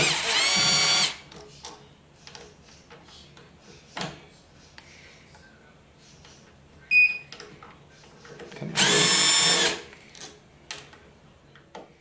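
Makita cordless drill-driver backing out the small screws of a scooter's handlebar dashboard plate. The motor runs twice, once at the start and again about nine seconds in, each run lasting about a second with a quick rising whine that then holds steady. Light clicks of the bit and screws come in between.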